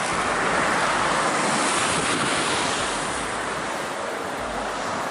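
Sea surf breaking over shore rocks, a dense rushing wash that swells over the first couple of seconds and then eases. Wind buffets the microphone.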